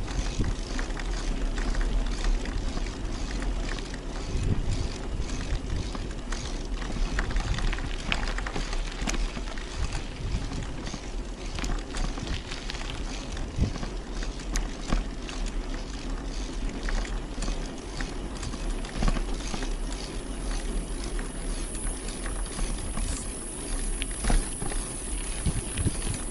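Bicycle being ridden over a rough track: steady rolling noise with wind rumbling on the microphone and frequent small clicks and rattles. A high steady hiss comes in about two-thirds of the way through.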